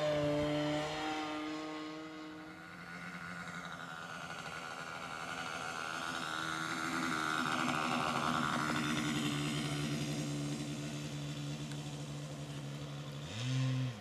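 O.S. MAX 55AX two-stroke glow engine of a radio-controlled model plane running at low throttle on a landing approach. It swells as the plane passes close by low over the runway and fades as it moves off, with a short louder burst near the end.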